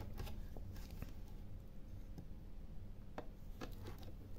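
Faint, irregular clicks and light taps from gloved hands handling the opened plastic case of a battery charger and the cables clipped into it.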